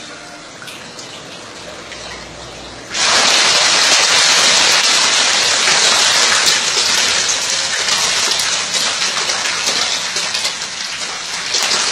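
A dense school of lele catfish splashing and thrashing at the pond surface in a feeding frenzy on leaves thrown in for them. The splashing starts abruptly about three seconds in and stays loud, over a softer steady water hiss before it.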